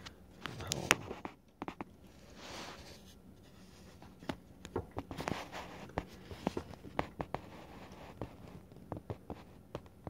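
Handling noise from a hand-held camera: scattered small clicks and taps with a few short scratchy rubs.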